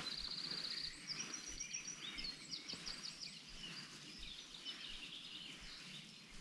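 Songbirds singing: a fast, even trill of high notes for about the first second, then a run of short chirps and whistles that thins out, over a faint steady background hiss.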